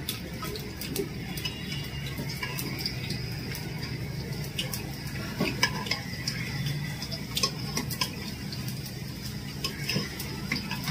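Metal ladle stirring thick cooked dal in an aluminium pressure cooker, with scattered light clinks and scrapes against the pot over a steady low hum.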